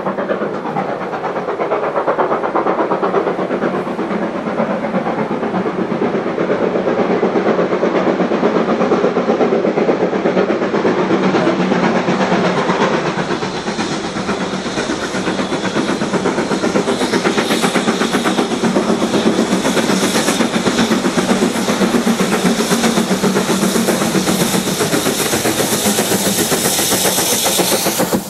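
BR Standard Class 4 steam locomotive 75014 approaching and passing close with its train, the running noise building steadily. Steam hiss grows stronger over the second half as the engine draws level.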